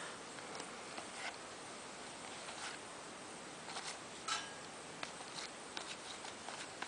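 Soft, scattered clicks and brief rustles of trading cards and foil pack wrappers being handled as hockey card packs are opened and the cards sorted through.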